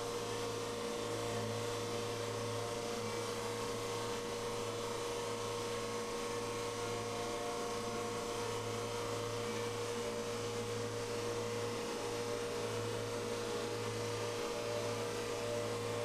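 SuperMax open-ended drum sander running steadily with a constant hum as a walnut-framed chessboard is fed through it, sanding the frame and playing field down to a uniform thickness.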